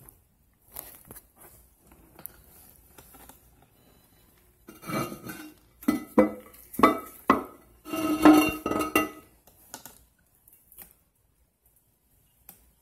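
Porcelain lid of a Briggs Proflo toilet tank being lifted off, clinking and knocking against the ceramic tank in a cluster of sharp clinks in the middle, after a few faint rustles.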